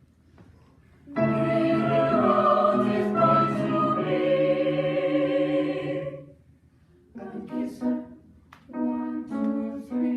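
A choir singing: a loud held chord starts about a second in and lasts about five seconds, then after a short break come several shorter sung notes.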